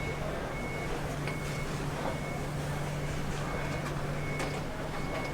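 Street-stall ambience: a steady low hum with a short high-pitched beep that repeats every second or so, and scattered faint clatter.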